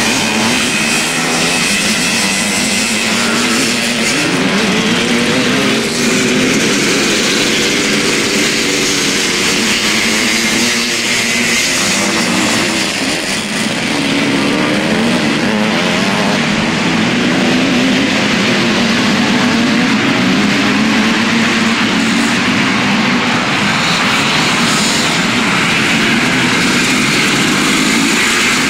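Several motocross motorcycle engines revving as the bikes ride past, their pitch rising and falling over and over.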